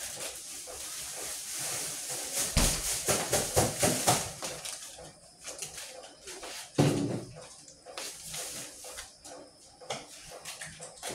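Kitchen handling noise: a run of knocks and clatter, densest a few seconds in, with a heavier thump about seven seconds in.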